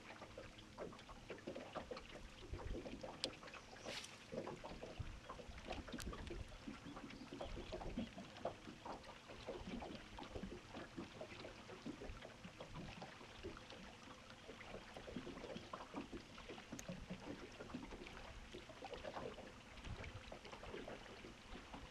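Small ripples lapping and slapping irregularly against a bass boat's hull, with a few isolated sharp ticks.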